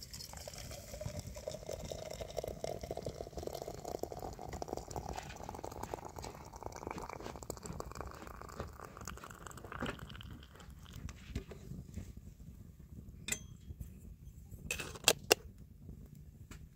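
Water pouring into a container, its pitch rising steadily as the vessel fills for about nine seconds. Then several sharp knocks, the loudest two in quick succession near the end.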